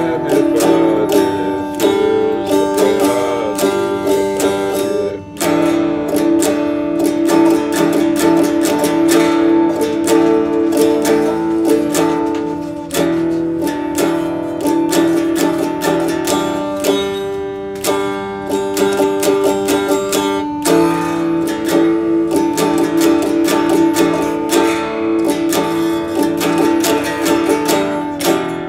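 RockJam Stratocaster-style electric guitar strummed in a steady, quick rhythm, its chords changing every few seconds. Near the end the strumming stops and the last chord rings on.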